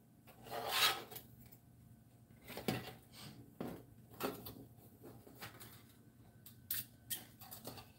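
Craft wire being poked through the punched holes of a sign and twisted by hand: a string of short scrapes, rubs and light clicks of wire against the sign, the longest and loudest rub about a second in.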